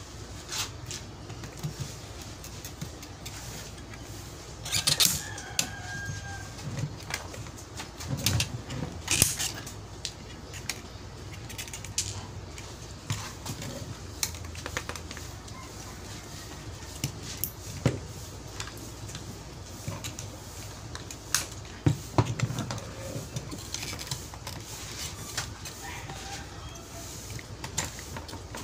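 Scattered clicks and knocks over a low steady hum, with a few short bird calls.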